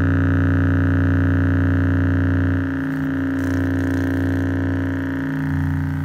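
A bare 4-inch subwoofer driver playing a steady low test tone at high excursion, with strong overtones up to the upper midrange. It is being driven hard enough that it is getting hot.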